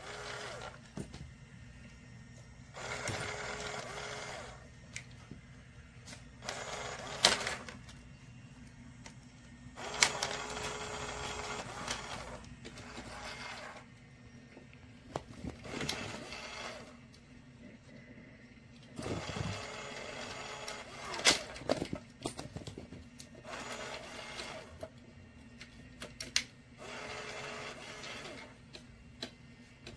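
Small electric motor of a motorized cat toy whirring in short, irregular spurts as it swings its feather wand around. Sharp plastic clicks and knocks come now and then.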